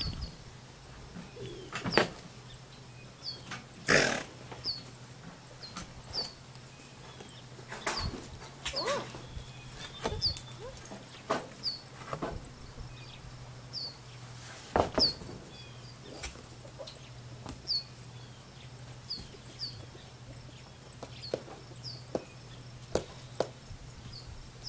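Scattered knocks and thumps, two of them louder, about 4 and 15 seconds in, over a small bird chirping a short, high, falling note about once a second, with a faint steady low hum underneath.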